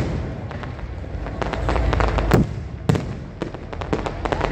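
Fireworks display: a dense run of bangs and crackles from bursting aerial shells over a steady low rumble, with two louder bangs a little past halfway.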